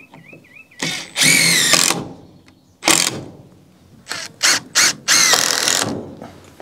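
Cordless Makita impact driver driving screws into a wooden 2x2 ledger in bursts: a long run about a second in, a short one near three seconds, three quick pulses a little after four seconds, then a longer run that trails off near the end.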